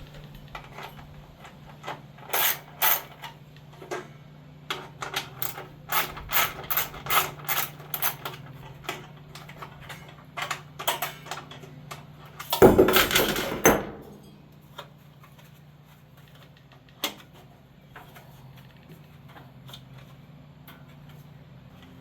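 Metal clicks and knocks from hand tools and the generator's sheet-metal housing as a cover is taken off, with a louder scraping clatter about 13 seconds in, then only a few scattered clicks.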